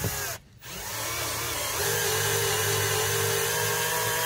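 Cordless drill-driver driving a screw into the boat's floor. The motor winds up, stops for a moment about half a second in, then winds up again and runs with a steady whine.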